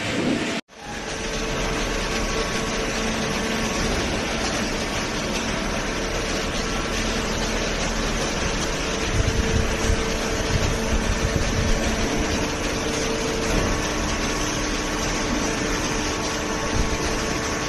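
Industrial cardboard baler running: the steady hum and whine of its hydraulic power pack, with a few irregular low knocks between about nine and twelve seconds in. The sound cuts out for a moment near the start.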